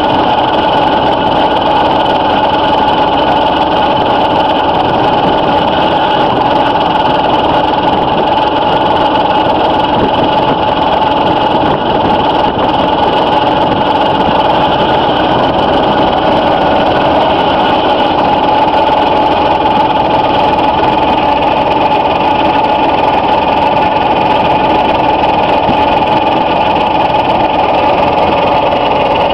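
Twin spinner discs of a manure spreader attachment running empty at a steady speed, with the truck's machinery driving them: an even mechanical drone with a steady whine.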